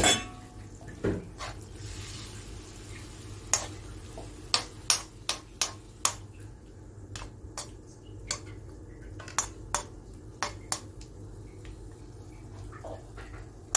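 Steel spoon stirring a watery curry of small fish and vegetables in a metal kadai, tapping and clinking against the pan in many short, irregular knocks over a steady low hum.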